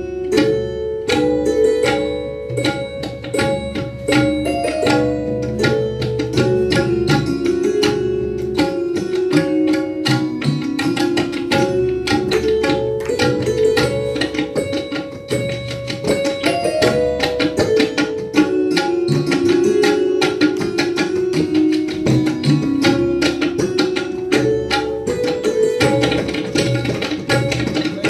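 Three tabla sets played together at a fast pace, the strokes dense and rapid. Under them a short melodic line repeats over and over, the lehra that keeps the time cycle in a tabla solo.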